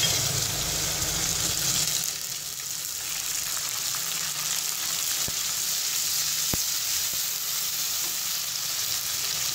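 Ginger-garlic paste and light-brown onions frying in hot oil in an aluminium kadai, stirred with a wooden spatula. The sizzling is steady and a little louder for the first two seconds, just after the paste goes into the oil, then settles.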